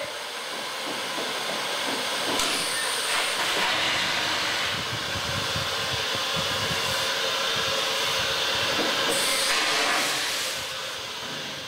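Green Goddess, a 15-inch gauge steam locomotive, running with its train, steam hissing over the clatter of wheels on the rails. The sound builds over the first couple of seconds, holds, and eases near the end.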